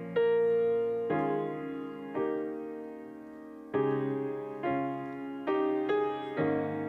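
Grand piano playing slow, gentle chords. A new chord is struck about once a second and left to ring and fade before the next.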